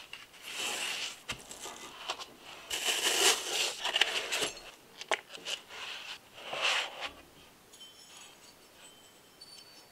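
Unboxing handling noise from a metal model engine kit: several bursts of rustling and scraping as the printed card sleeve and plastic parts boxes are handled, then faint light metallic clinks near the end as machined metal crankcase plates are picked up.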